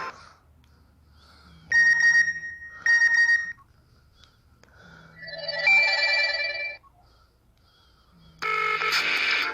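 Nokia 5230 mobile phone ringtones playing back. Two short ringing beeps come about a second apart, then a warbling electronic tone lasting about two seconds, and a fuller musical ringtone starts near the end, with short pauses between them.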